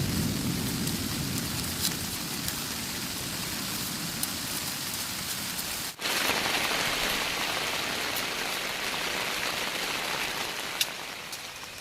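Steady rain falling, with scattered sharper drop clicks and a low rumble at the start that dies away. About six seconds in the sound cuts briefly and comes back brighter and hissier.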